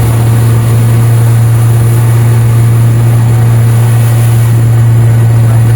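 A small fishing boat's engine running steadily at one constant pitch, a loud, even drone heard close up from on board.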